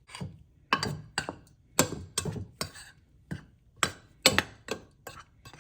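A utensil knocking and clinking against a mixing bowl while seasoning is stirred into flour and cornstarch: about a dozen sharp, irregular strikes, roughly two a second.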